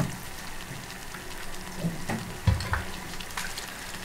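Stainless steel stockpot of chickpea and spinach stew on the hob, giving a steady fine sizzle and crackle as a silicone spatula stirs it. There are a few dull knocks, the loudest about halfway through.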